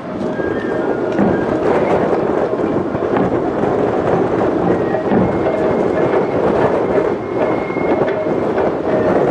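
Awa Odori festival band playing loud, dense music: drums and gongs beating under a high bamboo-flute melody.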